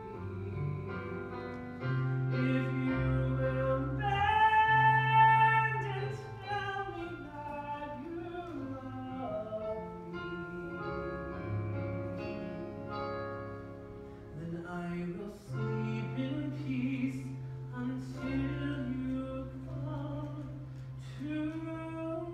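Slow live music: a melody with vibrato, in the manner of an operatic voice or bowed string, over keyboard chords and sustained low bass notes.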